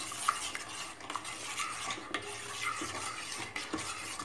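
A metal spoon stirring watermelon juice and milk in a stainless steel pan, scraping and clicking steadily against the pan to dissolve the added sugar.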